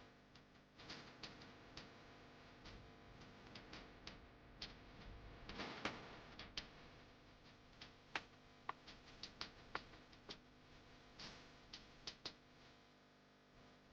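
Faint, irregular clicks and taps, some sharper ones bunched in the second half, over a low steady background hum.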